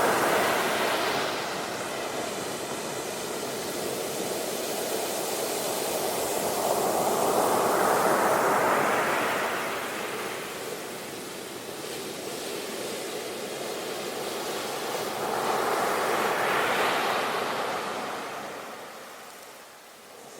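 Sea waves breaking and washing in: a steady rush of surf that swells to a peak about every eight seconds and ebbs between the swells.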